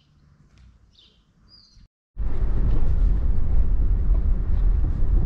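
A few short bird chirps over quiet outdoor ambience, then, from about two seconds in, a car heard from inside the cabin driving on an unpaved dirt road: a loud, steady low rumble of tyres and engine.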